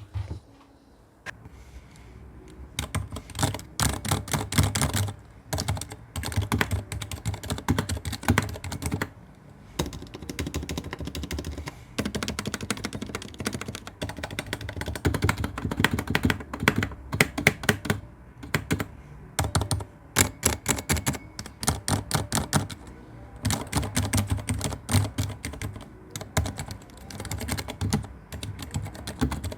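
Typing on an RK84 mechanical keyboard fitted with Cherry MX Silent switches, whose built-in dampers quieten each keystroke. Fast runs of soft key clicks start a couple of seconds in, broken by a few short pauses.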